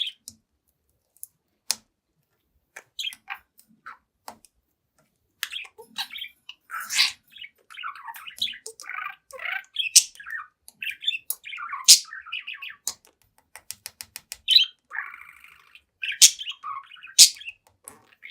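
Young budgerigar chattering: a few scattered clicks, then a long run of fast warbles, chirps and sharp clicks. Near the end there is a quick train of ticks and a short buzzy, grating note.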